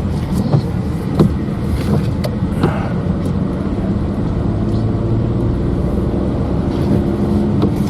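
Car engine and tyre noise heard from inside the cabin while driving, a steady low drone.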